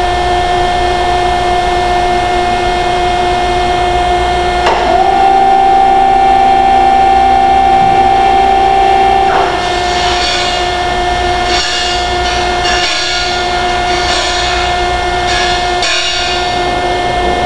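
Machinery of a melting furnace's opening mechanism running with a steady whine. About five seconds in, the pitch steps up slightly and it grows louder, then drops back about four seconds later. A run of irregular scraping and clanking follows.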